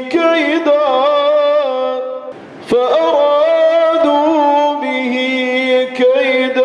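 A man reciting the Quran in the Iraqi melodic style, holding long drawn-out notes with wavering ornaments. He breaks off briefly for a quick breath about two and a half seconds in, then takes up a new held note.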